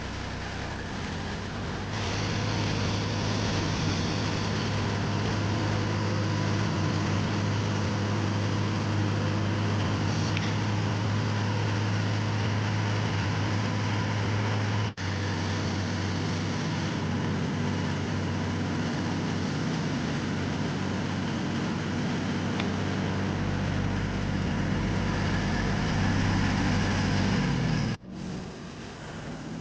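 Engine of the machine pulling out old fence posts, running steadily under load. It gets louder about two seconds in and drops out abruptly twice, about halfway through and near the end.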